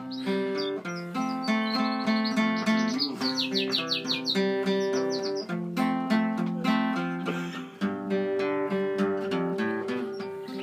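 Acoustic guitar playing an instrumental break, with a pet canary chirping over it in quick runs of high notes.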